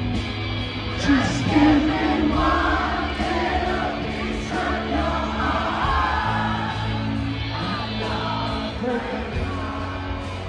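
Live indie rock band performing through a festival PA, electric guitar and drums with singing.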